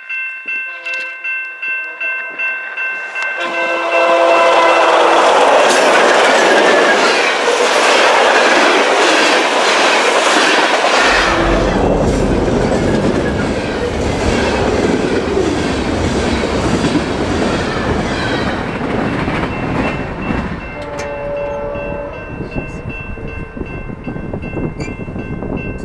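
A level-crossing bell ringing in steady pulses. About four seconds in, a diesel locomotive's horn sounds and a CN freight train passes close by: a heavy engine rumble from about eleven seconds in, then wheels clattering over the rails as the cars roll past, with the crossing bell heard again near the end.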